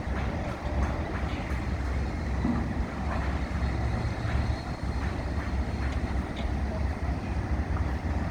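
Wind buffeting the microphone: a steady low rumble, with a few faint distant knocks.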